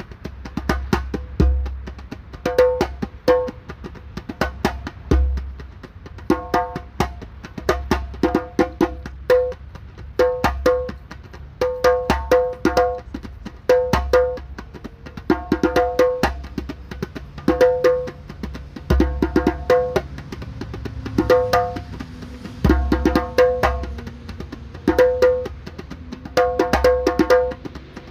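Djembe with a slack, low-tension head played solo: quick runs of sharp, ringing slaps and tones, broken every second or two by deep bass strokes.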